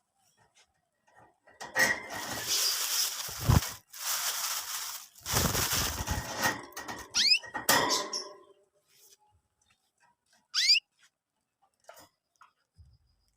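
Young canaries: several seconds of harsh, scratchy noise in the first half, then two quick rising chirps in the second half, with quiet gaps between them.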